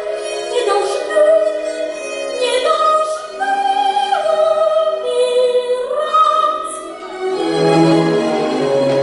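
Performance soundtrack: operatic-style singing in long held notes that glide between pitches. Deeper instrumental notes enter near the end.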